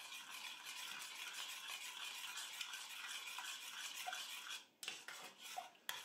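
Metal spoon stirring thin tomato sauce in a stainless steel pot: faint, steady scraping against the pot with small clinks, and a short break a little before the end.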